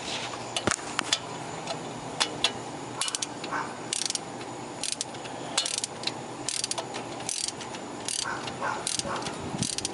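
Hand socket ratchet driving a hub assembly mounting bolt: scattered clicks at first, then from about three seconds in short back-strokes roughly every 0.7 s, each a quick run of pawl clicks, as the bolt runs in and tightens.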